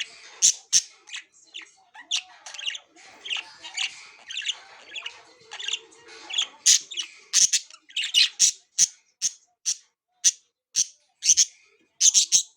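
Budgerigars chirping and squawking: a busy mixed chatter of short high calls, then from about halfway a run of separate sharp calls, roughly two a second.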